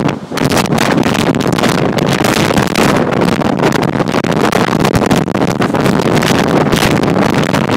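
Storm-force wind buffeting the microphone: a loud, dense rush with constant gusty flutter that dips briefly just after the start.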